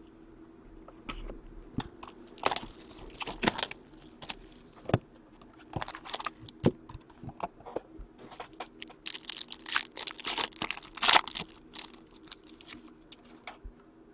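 Plastic wrapping and card packaging being torn and crinkled open by hand as a hockey card box is opened, with a string of sharp crackles and clicks, busiest a little past the middle. A faint steady hum sits underneath.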